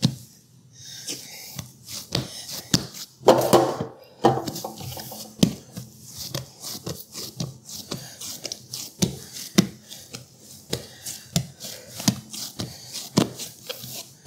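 Hands pressing, squeezing and patting soft bread dough on a plastic cutting board to push the air bubbles out of it. The sound is irregular soft thumps and slaps, with a longer, louder stretch about three seconds in.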